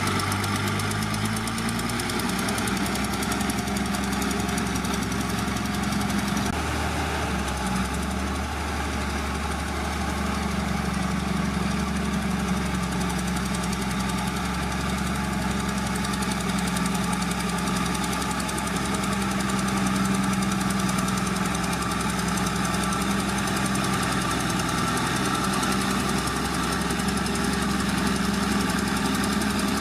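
Heavy earthmoving machine's diesel engine running continuously under work. Its pitch shifts a little near the start and again about seven seconds in.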